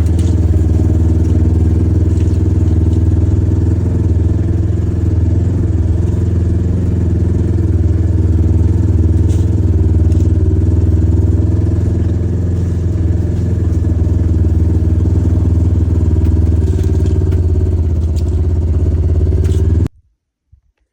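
An engine running steadily at an even speed, a loud low drone with a faint clatter over it, which stops abruptly near the end.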